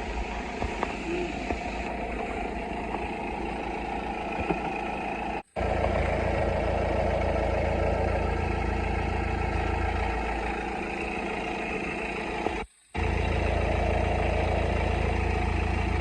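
BMW 118d four-cylinder diesel engine idling steadily. The sound drops out briefly twice.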